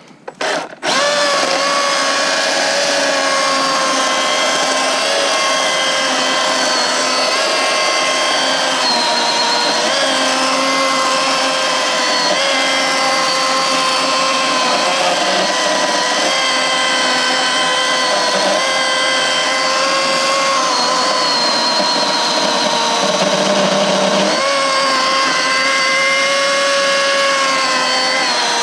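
Milwaukee M18 Fuel brushless cordless chainsaw blipped twice, then running steadily at full speed as it cuts through a dead log. Its motor whine dips slightly in pitch now and then as the chain loads up in the cut.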